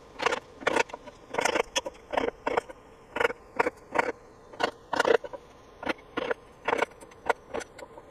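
A mallet repeatedly striking a small chisel held against the centre stump of a dry, long-seasoned black walnut bowl, chipping the hard wood out by hand. The strikes are sharp, separate knocks, about two a second, each with a short ring.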